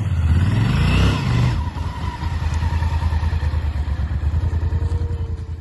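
Honda XL1000V Varadero's V-twin engine revving hard for about a second and a half, then running steadily, quieter, until it drops away at the end.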